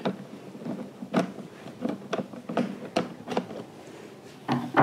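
Flat-blade screwdriver working the maintenance-cover screw on a Honda EU22i generator's plastic housing, then the screwdriver set down on the wooden bench and the cover handled: light clicks and taps about every half second, with a louder knock near the end.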